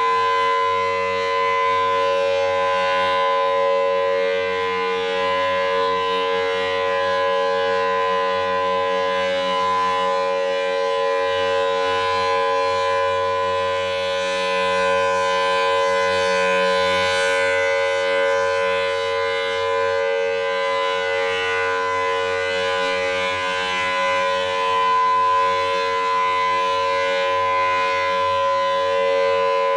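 Federal Signal Thunderbolt 1000T civil defense siren sounding its steady Alert tone, the pitch held level throughout.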